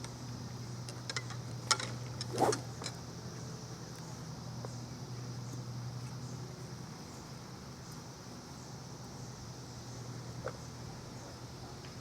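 Steady low hum with a cluster of clicks and a short rattle about two seconds in, and a single tick near the end.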